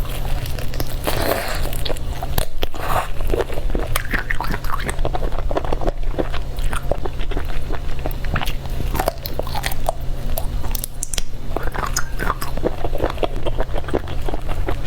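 Close-miked biting and chewing of octopus tentacles: a steady run of irregular wet clicks, smacks and crunches from the mouth, over a low steady hum.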